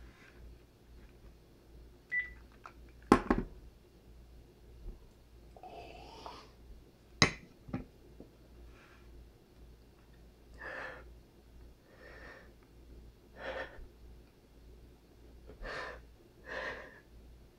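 A man sobbing, with sniffling, gasping breaths coming in uneven short bursts. Two sharp knocks sound about three seconds in and again about seven seconds in.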